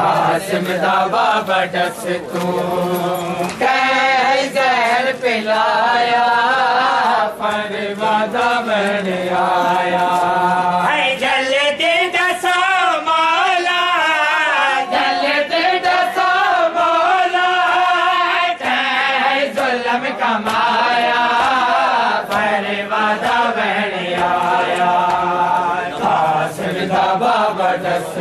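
Men chanting a noha, a Shia mourning lament, one sung line after another, with many sharp slaps from hands striking bare chests in matam.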